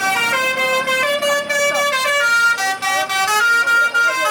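Indonesian telolet bus horn, a set of musical air horns, playing a tune whose notes change in steps several times a second, with some sliding notes laid over it.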